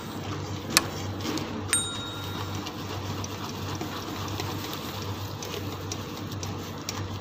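Soaked tamarind pulp being squeezed and pressed by hand through a stainless mesh strainer into a metal pot, a steady wet squishing and trickling of tamarind water over a low hum. A sharp tap comes just under a second in, and a second tap about a second later rings briefly, like the metal strainer knocking the pot.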